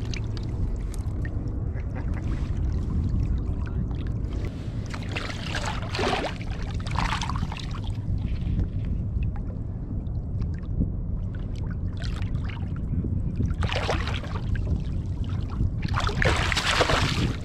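Sea water splashing and sloshing around a fishing kayak, with a few louder splashes about five seconds in, past the middle and near the end, over a steady low rumble.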